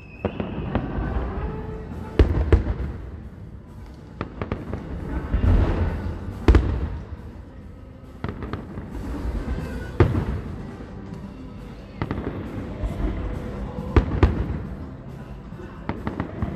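Aerial fireworks shells bursting in the sky: a string of sharp bangs every few seconds, with smaller crackling pops between them.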